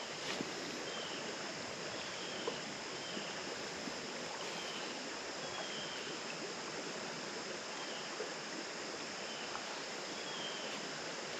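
Shallow creek water running steadily. Over it, a short, high, falling chirp repeats about once a second.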